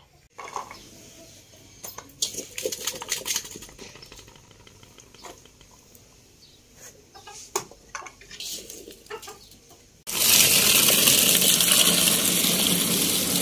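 Cut raw mango pieces clicking and knocking against each other and the steel bowl as they are handled. About ten seconds in, a tap's water gushes loudly and steadily into the steel bowl over the mango pieces.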